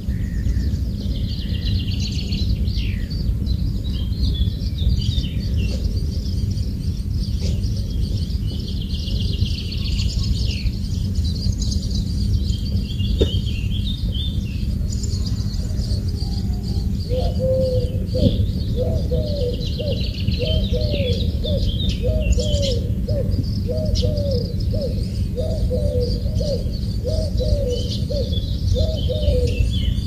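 Forest birds chirping and singing over a steady low background noise. From about halfway through, a lower call repeats a little faster than once a second.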